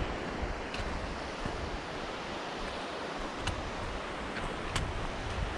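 Steady rushing of a fast-flowing mountain stream, with wind buffeting the microphone and a few faint clicks, likely footsteps on the rocky trail.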